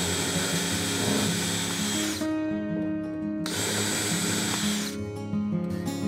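Cordless drill driving small screws into a piano hinge on a wooden lid. It runs twice with a steady high whine, about two seconds the first time and about a second and a half the second time starting about three and a half seconds in, and winds down in pitch each time it stops. Background guitar music plays underneath.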